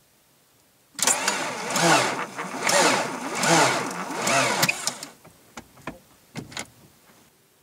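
Mk3 VW 1.9 litre AAZ diesel engine cranking very slowly on its starter motor for about four seconds. The starter's whine sags and recovers in slow surges as it labours through each compression, and the engine hardly turns over and does not catch: a sign of heavy drag, later traced to a seized alternator. A few sharp clicks follow once the cranking stops.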